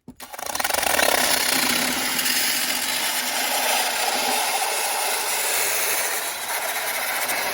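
A power tool starts abruptly and runs steadily, cutting into the van's floor layers to clear away the styrofoam insulation around where the diesel heater's hot exhaust pipe will go.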